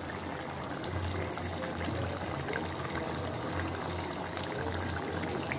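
Prawn malai curry simmering in a pan, the thick gravy bubbling steadily with small scattered pops.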